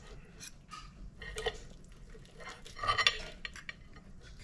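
Fork and knife scraping and clinking on a ceramic plate while cutting into rotisserie chicken thighs: scattered light clicks, with a louder clatter about three seconds in.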